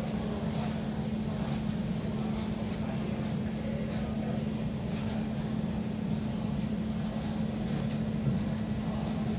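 A steady low machine hum with a constant tone, and a cat crunching dry kibble in faint, irregular clicks over it.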